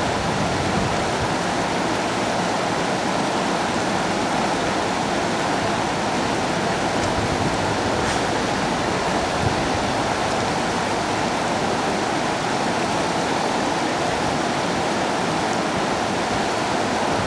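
River current rushing steadily, a constant wash of flowing water.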